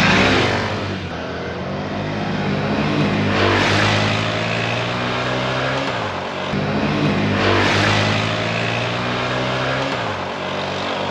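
The single-cylinder 125 cc engines of a Honda SH 125 scooter and a Honda CB 125 F motorcycle running under acceleration. The engine note holds steady, with dips in pitch near the start and about six seconds in, and three rushes of noise come about four seconds apart as the bikes pass.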